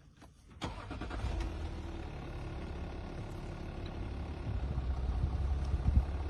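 A motor vehicle's engine starts about half a second in and keeps running with a steady low hum, getting a little louder toward the end.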